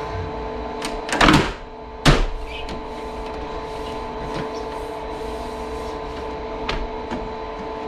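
LG 36,000 BTU split air conditioner's indoor unit running with a steady hum, while its plastic front panel is handled: two loud clacks about one and two seconds in, then a few light clicks.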